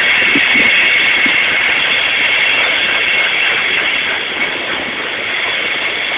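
Loaded coal train's hopper cars rolling steadily past: a continuous loud rolling noise with a steady high whine held over it.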